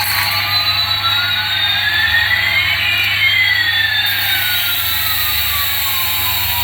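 Electronic jet-engine sound effect: a steady hiss with one whine sliding up in pitch while another slides down, the two crossing about halfway through.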